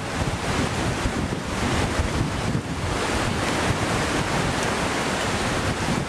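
Steady rushing wind noise buffeting the microphone, over the wash of surf.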